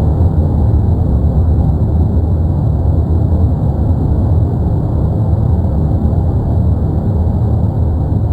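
Erupting Cumbre Vieja volcano on La Palma giving off a loud, steady low rumble, with no single blasts or breaks.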